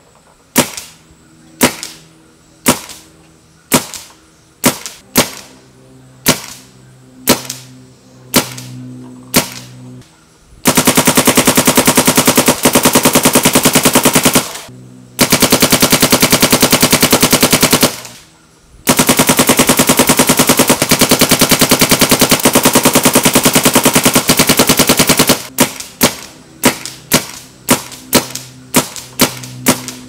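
Paintball marker firing through a Planet Eclipse Shaft barrel (Shaft FR back, .690 insert). It starts with single shots about a second apart, moves to long strings of very rapid fire with two brief breaks, and ends with quicker single shots again.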